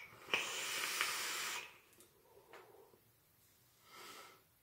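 A long draw on a vape: a steady airy hiss through the atomizer for about a second and a half, then, near the end, a soft short breath out as the vapor is exhaled.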